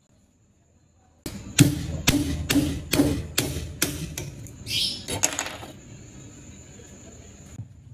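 A steel bar knocking and prying the wooden handle scales off a rusty knife's tang: about ten sharp knocks, roughly two a second, with a brief scraping creak near the end as a scale comes loose.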